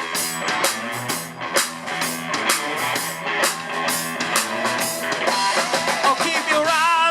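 Live rock band playing: drum kit, bass and guitar. Near the end a wavering lead melody with wide vibrato comes in over the band.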